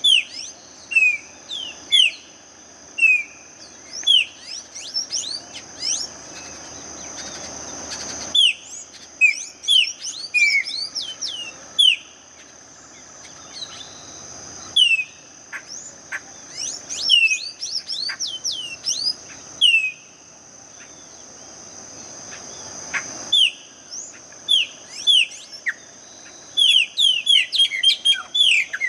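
Songbirds chirping: many short, quickly falling notes repeated over and over, growing busier near the end, over a steady high-pitched drone.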